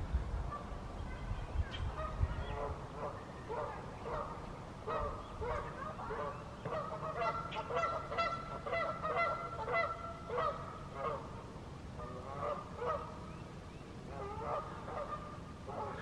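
Geese honking, many short calls overlapping, thickest in the middle and thinning toward the end.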